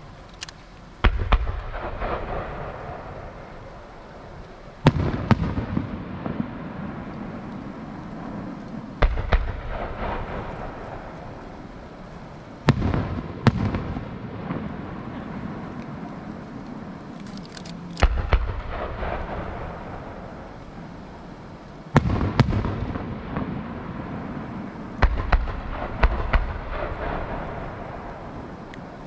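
Aerial fireworks shells bursting in a series of loud bangs every three to four seconds, each followed by a rolling echo and crackle that dies away before the next.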